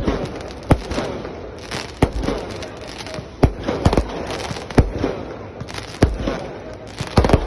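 Fireworks going off: sharp bangs about once a second over a constant crackling haze, with a quick cluster of bangs near the end.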